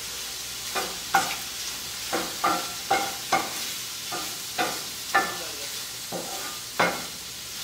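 Wooden spatula stirring and scraping shrimp around a nonstick frying pan, about two strokes a second, over a steady sizzle of the shrimp in butter in the still-hot pan, its gas burner just turned off.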